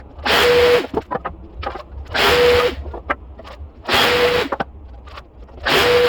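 A woodworking tool worked in four short, evenly spaced bursts, each with a steady whine, with light clicks and knocks between them.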